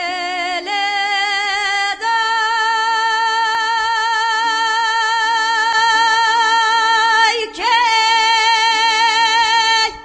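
A woman singing a Kurdish folk song solo, holding long notes with a wide vibrato. Her pitch steps up twice in the first two seconds and swoops down and back up about seven and a half seconds in, over a steady low drone.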